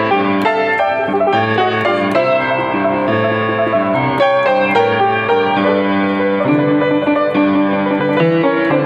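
Solo upright piano playing a blues with both hands: sustained low chords under a busy run of notes higher up, at an even level throughout.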